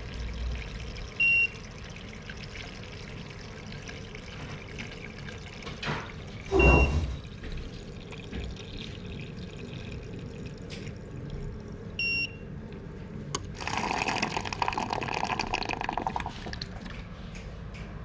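Water running through a hose into a plastic bucket, rushing louder for a few seconds near the end. An irrigation controller's buzzer gives a short high beep about every five seconds, its alarm for an empty tank. There is a thump near the middle.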